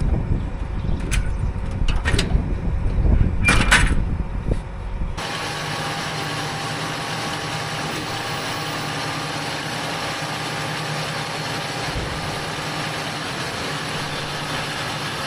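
Loud rough rumble with a few sharp clicks and clunks for about five seconds. Then an abrupt change to the steady drone of a tractor engine pulling a round baler.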